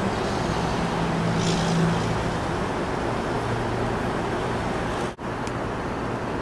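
Steady rush of road traffic with a low engine hum drifting in pitch; the sound breaks off for an instant about five seconds in, then carries on.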